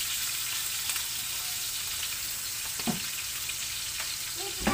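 Fish frying in oil in a pan, a steady sizzle. Two short knocks, about three seconds in and again near the end.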